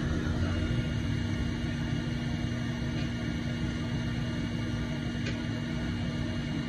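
Steady low rumble with a constant low hum, broken by two faint ticks, one about three seconds in and one about five seconds in.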